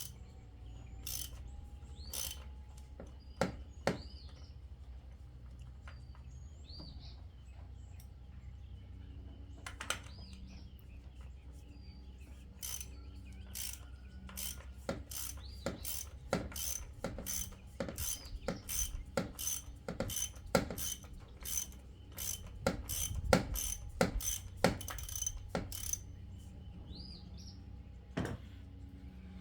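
Socket ratchet clicking as it loosens the oil filter housing cap: a few scattered clicks, then a long, even run of single clicks about two a second.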